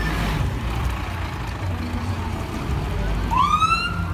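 Fire and rescue truck pulling away, its diesel engine running low, while its siren gives short wails that rise in pitch and cut off: one ends just at the start, and another starts about three seconds in and stops abruptly.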